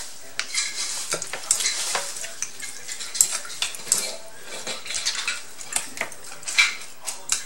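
A plastic spoon stirring and scraping in a small ceramic bowl, clicking irregularly against its sides, as fish sauce is mixed into lime juice.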